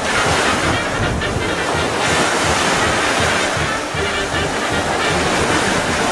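Surf washing on the shore, a steady rush of noise, with wind buffeting the microphone in low gusty rumbles.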